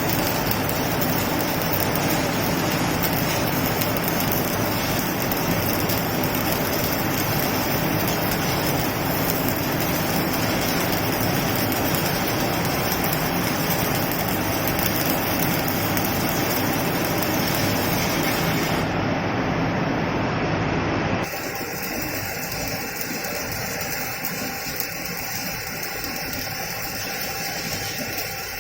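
Arc welding with stick electrodes: the arc crackles and hisses steadily as a straight bead is run. About three-quarters of the way through, the sound drops somewhat in level and loses its low end.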